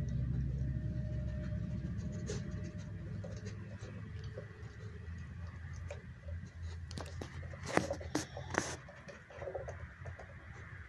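Old English Sheepdog puppy chewing and mouthing a hard plastic treat-dispensing ball on a wooden floor: faint scratching and gnawing, then a few sharp clicks and knocks from the ball against teeth and floor about eight seconds in.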